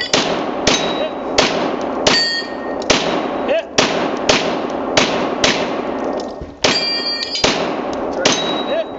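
Semi-automatic pistol firing at a steel spinner target, about a dozen shots at a steady pace of roughly one every two-thirds of a second. After several hits the steel rings on briefly.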